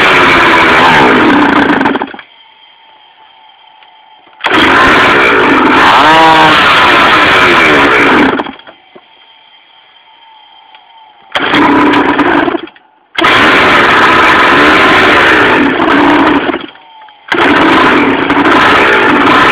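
Pocket bike's small two-stroke engine running loud and being revved, its pitch rising and falling with the throttle. The sound drops away abruptly four times for a second or two and comes back just as suddenly.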